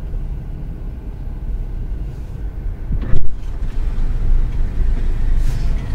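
Car engine and road rumble heard from inside the car's cabin, low and steady, with one loud sharp thump about three seconds in.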